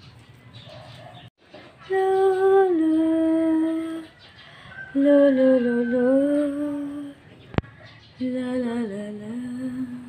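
A woman humming a slow lullaby to put a baby to sleep: three long held phrases that dip gently in pitch, with short pauses between. A single sharp click falls between the second and third phrases.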